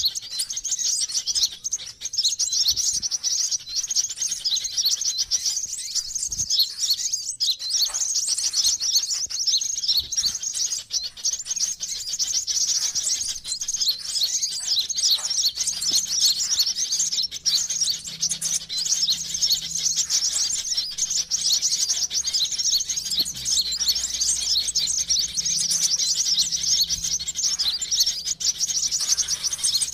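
Sunbird lure recording: rapid, high-pitched chirping and twittering that runs on without a break, the kind of call played to draw sunbirds in.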